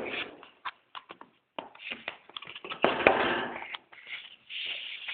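Handling noise from a phone box and its packaging being opened: an irregular string of taps, clicks and rustles, with a longer, louder rustle about three seconds in.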